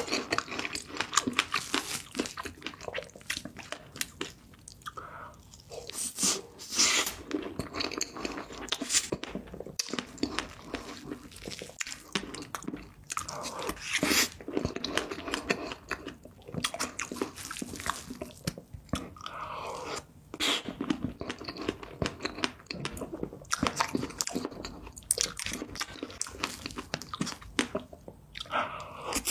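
A person chewing mouthfuls of soft cream cake, with a continuous run of short clicks and mouth noises.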